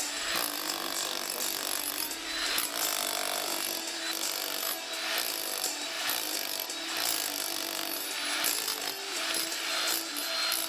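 GEKO 1050 W electric demolition hammer with a flat chisel, hammering continuously into a reinforced concrete fence post. The level swells and eases as the chisel bites into the concrete.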